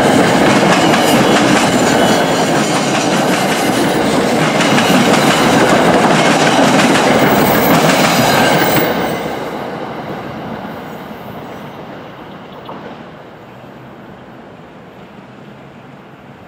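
NJ Transit Comet V passenger coaches passing close by at speed, wheels clicking over the rail joints. The sound is loud until the last car goes by about nine seconds in, then fades away as the train recedes.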